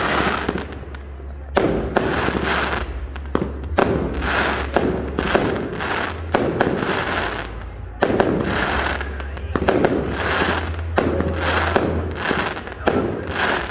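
Fireworks display: a rapid succession of loud explosions, about one a second, each bang fading out before the next, over a steady low rumble.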